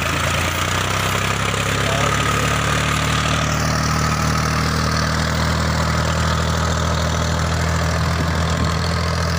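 New Holland Ghazi tractor's diesel engine running at a steady, even speed while pulling a rear levelling blade through loose soil.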